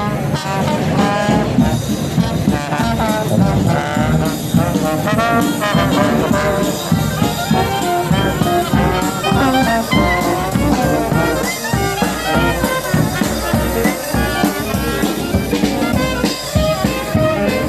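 A brass band playing a tune as it marches in a street procession, with trombones and trumpets carrying the melody.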